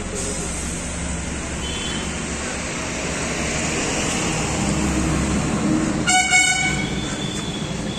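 Steady engine and traffic noise, with one short vehicle horn toot about six seconds in.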